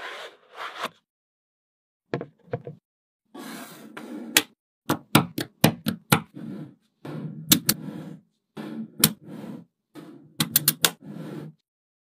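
Small magnetic balls clicking and snapping together as rows and panels of them are set onto the build, with sharp clicks over bursts of rattling and scraping. The sound comes in short stretches with clean breaks between them.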